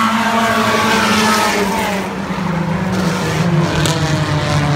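Thunderstock stock cars racing past on a dirt oval, engines running hard. Each car's pitch drops as it goes by, over the steady drone of the rest of the field.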